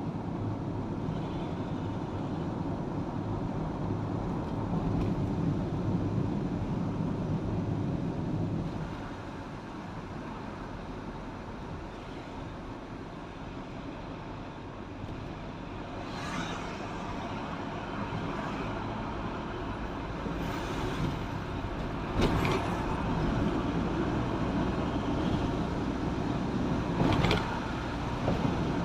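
Steady engine and road noise of a vehicle driving along a road. It eases off about nine seconds in and builds again later, with several short sharp knocks in the second half.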